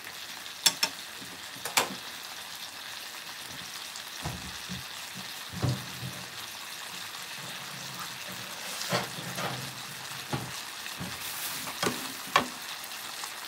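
Chicken and spinach in a soy sauce and sake sauce sizzling steadily in a frying pan as the sauce reduces and the chicken is nearly cooked. A few sharp clicks stand out about a second in and again near the end.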